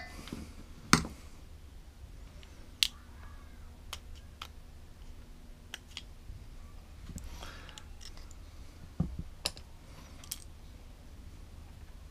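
Small metal carburetor parts and a pair of pliers being handled on a workbench: scattered sharp clicks and taps every second or two, the loudest about one second and three seconds in.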